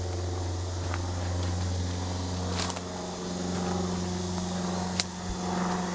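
Steady low engine drone, like a vehicle or farm machine running, with two sharp clicks, one a little over halfway and one near the end.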